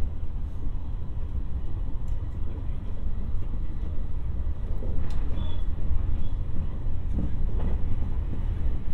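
Electric commuter train running along the track, heard from inside the passenger car: a steady deep rumble of wheels and running gear with an even hiss of rolling noise.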